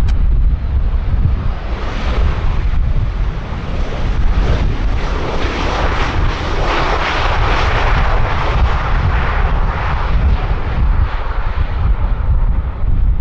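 Jet airliner on landing approach flying past, its engine noise swelling to a peak about halfway through and then fading. Strong wind buffets the microphone throughout.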